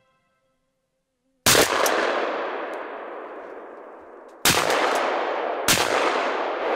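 Three shotgun shots, about a second and a half in, about four and a half seconds in and a second after that, each followed by a long echo that dies away slowly.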